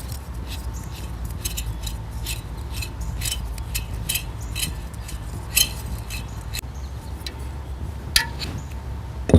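Light clicks and clinks of plastic and metal bird-feeder parts being handled as the spring and seed tray are worked off the feeder's tube. There are a few louder knocks a little past halfway and near the end, over a steady low hum.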